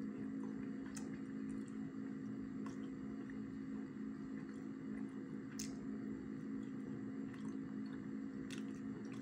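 A person chewing sticky rice cake, with a few faint mouth clicks now and then, over a steady low hum.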